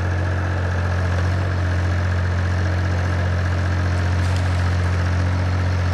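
Mini excavator's engine running steadily, a constant low hum with no change in speed.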